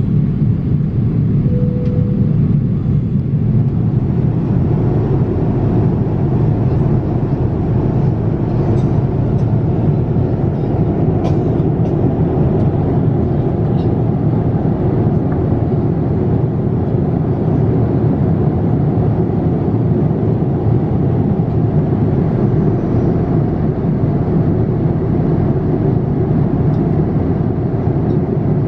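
Steady cabin noise of a Boeing 787-8 airliner in flight: an even, loud rush of airflow and engine noise inside the economy cabin. A short beep sounds about two seconds in.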